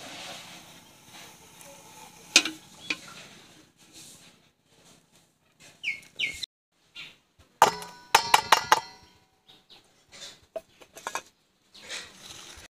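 Stainless steel dishes clinking: a quick run of ringing metallic strikes about eight seconds in, with a couple of sharp knocks earlier. Two short high-pitched chirps come around six seconds in.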